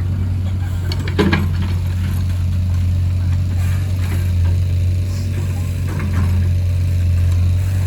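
Excavator's diesel engine running steadily with a low drone, and a short knock about a second in.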